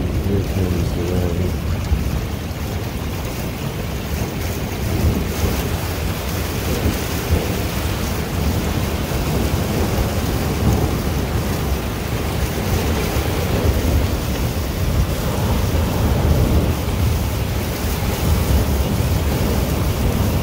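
Thunderstorm: a continuous low rumble of thunder under a steady hiss of rain and wind.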